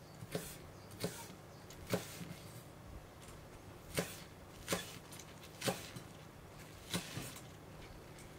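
Kitchen knife chopping a bunch of thin green onions on a wooden cutting board: short, crisp cuts and taps of the blade on the wood, about one a second.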